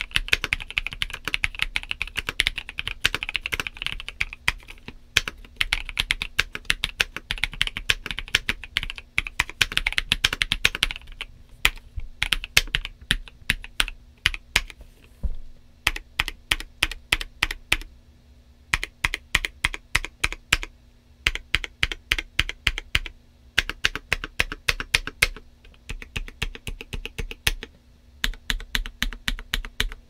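Typing on a Monsgeek M2 aluminum mechanical keyboard with Kailh Cream linear switches and Akko MDA double-shot PBT keycaps. It starts as fast, continuous typing for about the first eleven seconds, then turns into bursts of keystrokes with short pauses between them, some of them on the number pad.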